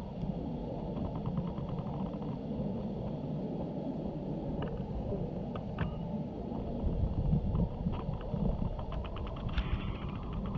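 Steady low rumble of wind buffeting the microphone, with faint scattered clicks and brief rattles over it.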